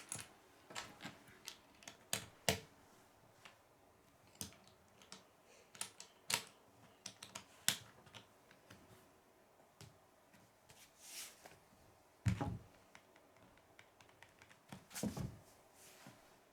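Small plastic Lego bricks being handled and snapped together: irregular sharp clicks with pauses between them. Heavier rustling knocks come about 11, 12 and 15 seconds in.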